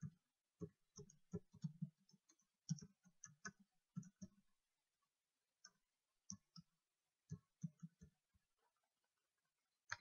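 Faint typing on a computer keyboard: quick runs of keystroke clicks, with a pause about halfway through and near the end.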